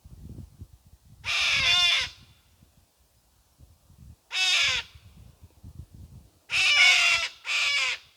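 A crow cawing: four harsh, drawn-out calls spaced a couple of seconds apart, the first and third the longest. Faint low rustling is heard between the calls.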